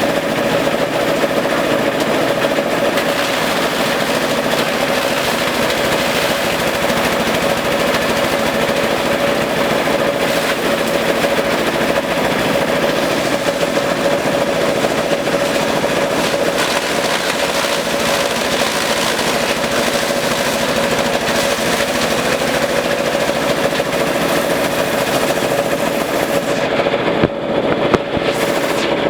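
Compost chopper machine running steadily under power, a constant tone over a dense rapid rattle, as in shredding elephant grass. Near the end the high, hissing part of the sound briefly drops away.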